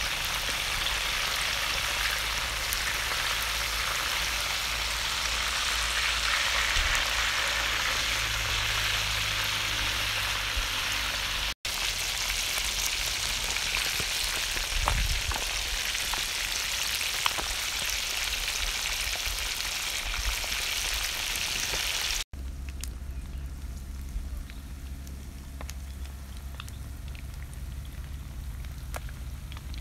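Snakehead fish pieces deep-frying in hot oil: a dense, steady sizzle. After an abrupt cut near the end it gives way to a quieter background with a low hum and faint scattered crackles.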